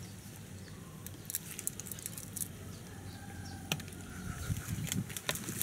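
Faint scattered clicks and rustling from hands picking through the split, grub-eaten crown of a coconut palm.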